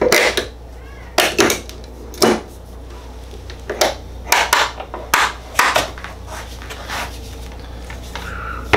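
Irregular sharp knocks and clacks as a mahogany board and a bench clamp are handled and set down on a perforated workbench top, about eight in all, the loudest at the very start.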